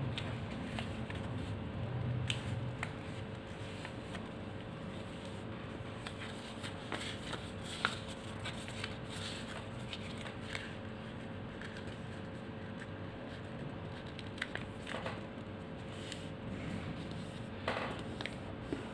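A sheet of paper being folded and creased by hand on a tabletop: soft rustling with scattered crinkles, the sharpest about eight seconds in, around fifteen seconds, and near the end. A faint steady hum runs underneath.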